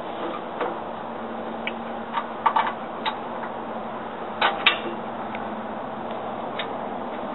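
Hand tools and metal hardware clicking and tapping against the steel of a Sherman tank's turret fittings as a component is worked into place: scattered sharp clicks, a few in quick clusters about two and a half and four and a half seconds in, over a steady low hum.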